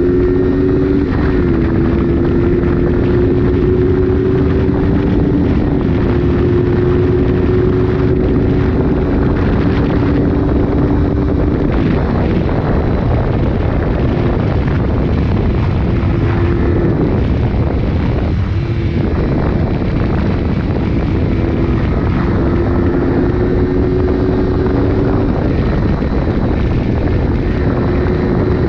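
Honda CB125 twin's four-stroke engine pulling steadily under way, with wind buffeting the microphone. The engine note steps down a little a couple of times in the first few seconds and drops out briefly about two-thirds of the way through.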